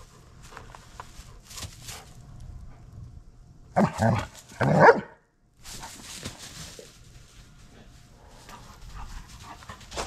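German Shepherd barking twice in quick succession about four seconds in, each bark short and loud.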